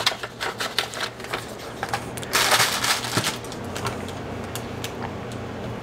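Paper and a cardboard envelope being handled: a run of light rustles and taps, then a louder sliding rustle about two seconds in that lasts under a second.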